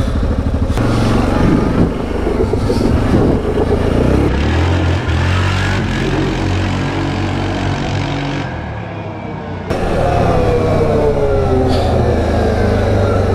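Yamaha Grizzly 700 ATV's single-cylinder four-stroke engine running under way, revving up and easing off. The sound changes abruptly a few times, and in the last few seconds the engine's pitch falls steadily.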